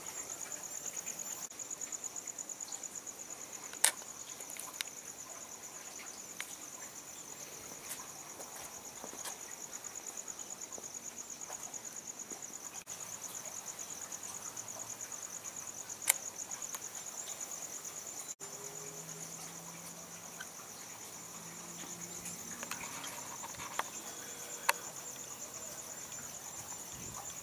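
Crickets trilling in a steady high-pitched chorus, with a few sharp clicks standing out above it.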